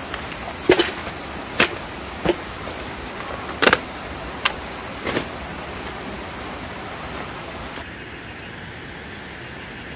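Camping gear being handled and unpacked: about seven short rustles and knocks in the first five seconds, over a steady rushing of a mountain creek. About eight seconds in, the creek's rush turns duller and a little quieter.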